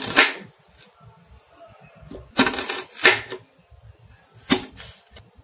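Kitchen knife slicing a halved red onion, the blade knocking on a hard surface with each cut: about five crisp cuts spaced unevenly.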